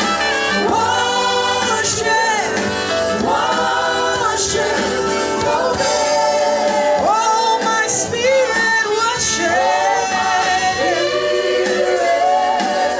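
Gospel worship music with voices singing together.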